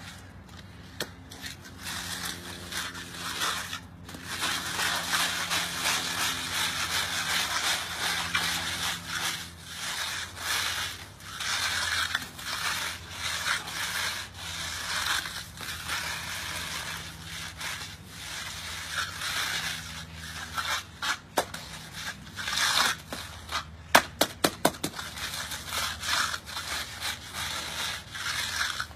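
Diamond-pattern concrete hand float rubbed back and forth over a fresh concrete slab: repeated gritty scraping strokes as it grinds the surface down and fills the holes. A quick run of sharp clicks comes near the end.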